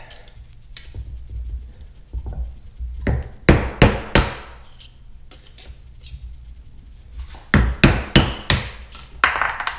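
A hammer strikes the handle of a screwdriver to drive an old seal out of an outboard lower-unit part clamped in a vise. The sharp blows come in two quick runs: about three some three and a half seconds in, and about four near the end.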